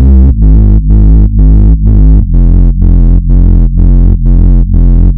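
Loud background music: a heavy bass line pulsing about twice a second, its note changing twice.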